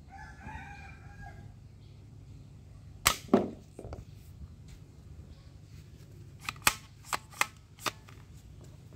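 Plastic toy gun worked by hand: two loud snaps just after three seconds in as its mechanism is cocked, then five sharp clicks in quick succession between about six and eight seconds in. A faint drawn-out call sounds in the background near the start.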